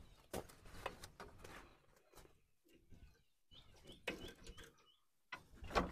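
Steel wire rope being handled and looped onto a tractor's drawbar hook: faint irregular rustling, scraping and clicking of cable against metal. A bird chirps a few times around the middle.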